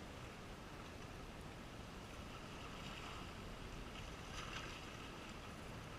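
Steady outdoor noise of wind and a calm sea washing gently, with no distinct events.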